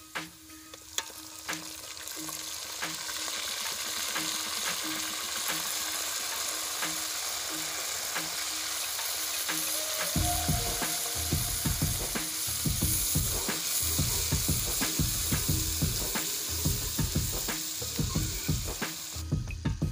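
Onions, tomatoes and spices sizzling in oil in an aluminium karahi over a wood fire: the masala being fried. From about halfway on, a steel ladle stirs and scrapes against the pan in irregular strokes.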